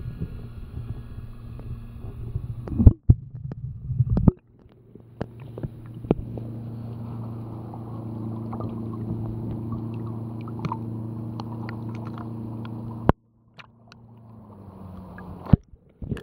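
Muffled water sloshing and knocks against a waterproof action camera as it moves in and out of the sea, over a steady low hum for much of the time. Two sharp knocks come a few seconds in, and the sound cuts off suddenly near the end.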